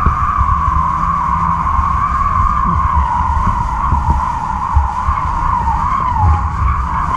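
Wind across a camera fixed to a tensioned kite line: a steady high whistle that wavers slightly in pitch and dips briefly about six seconds in, over low wind rumble on the microphone.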